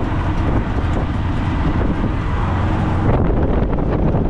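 Auto-rickshaw running along the road, its small engine rumbling steadily under the rush of wind buffeting the microphone through the open side.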